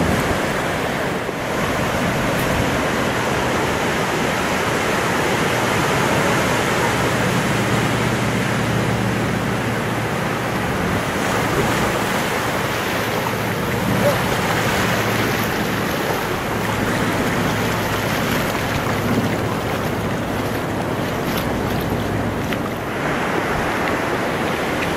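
Ocean surf breaking and washing up a sandy beach, a steady rushing wash.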